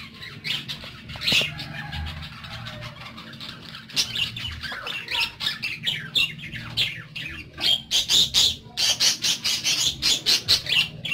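Caged parakeets chirping and squawking in quick, sharp calls, coming faster and louder over the last few seconds.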